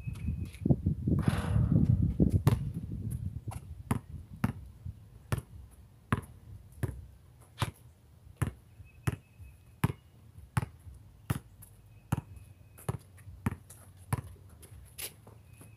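A basketball dribbled on an outdoor concrete court, bouncing in a steady rhythm about every three-quarters of a second. About a second in, a loud rumbling noise lasts for roughly two seconds.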